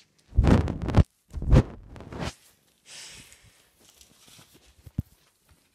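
Phone microphone handling noise: two loud rubbing rushes with a heavy low rumble as the phone is swung around, then faint rustling and a single click near the end.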